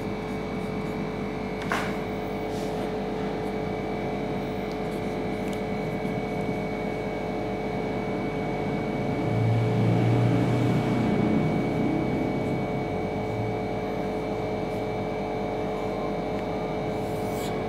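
Steady machine hum made of several constant tones. A low rumble swells about nine seconds in and fades again a few seconds later.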